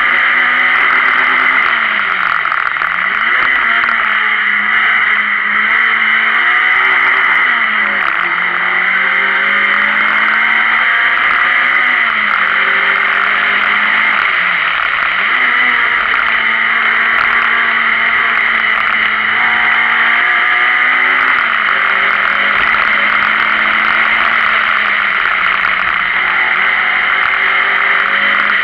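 Renault Clio Sport's four-cylinder engine heard from inside the car at racing pace, its revs rising and falling through the gears, with sharp dips about two and a half seconds in and again around fifteen seconds, over loud road and wind noise.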